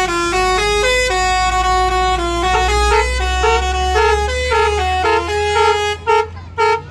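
Bus 'basuri' telolet horn playing a quick melody of stepped, pitched notes, then two short toots near the end, over the low rumble of the bus engine.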